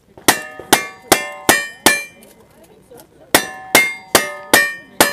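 Ten gunshots, each with a ringing clang of steel targets being hit, in two quick strings of five, about 1.5 s apart.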